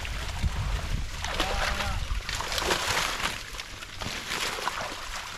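Water splashing and sloshing as people wade and haul a fishing net by hand, with faint voices.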